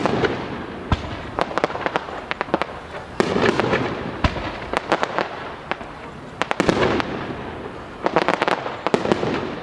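Aerial fireworks bursting in rapid succession: four loud bangs, one at the start, then about three, six and a half and eight seconds in, each followed by a spray of sharp crackles and a ringing echo.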